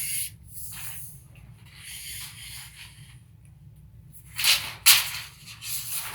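Steel tape measure blade sliding against its case, a rasping, scraping noise, with two loud sharp clacks about four and a half seconds in.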